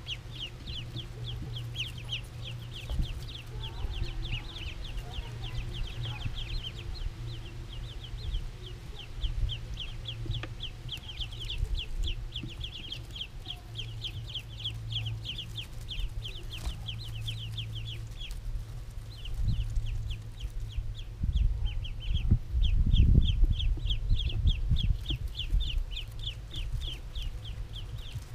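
A brood of ducklings peeping without pause, a rapid stream of short, high, falling peeps. A steady low hum runs underneath, and a low rumble swells near the end.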